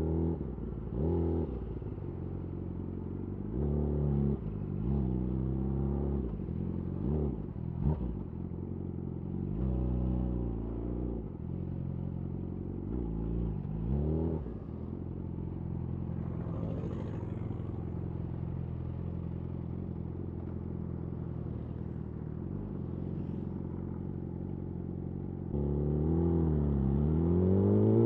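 Yamaha YZF R6 inline-four through a de-catted Akrapovič slip-on exhaust, revving up and down in short bursts, then running steadily at low revs. Near the end it opens up into a loud second-gear acceleration, the pitch climbing steeply.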